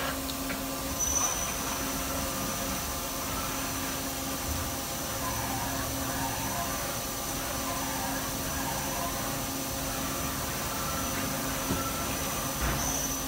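Daewoo Puma 2500LM CNC turn-mill center running a program: a steady machine hum and a thin high whine, with servo whine that rises and falls in pitch several times in the middle as the turret traverses its axes.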